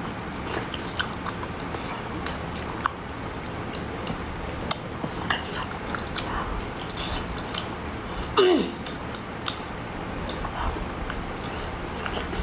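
Close-up eating sounds of a whole boiled octopus being bitten, torn apart by hand and chewed: scattered wet clicks and smacks over a steady hiss. About eight seconds in there is a louder short sound that falls in pitch.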